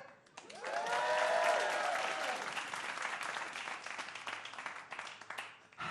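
Audience applauding, with held cheers from a few voices over the first couple of seconds. The clapping then tapers off before the end.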